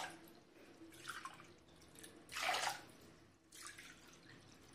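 Water poured by the cupful into a steel pan of sugar, measured out for sugar syrup: three short splashes over a few seconds, the middle one the loudest.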